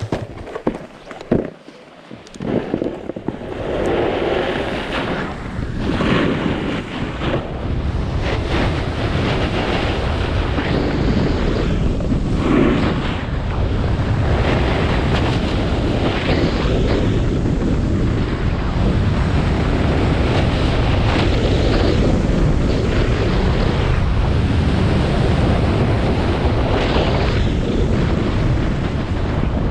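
Wind buffeting the camera's microphone together with the rush and scrape of a snowboard sliding over snow, building up about three seconds in and then holding steady with slow swells. A few sharp knocks come in the first two seconds.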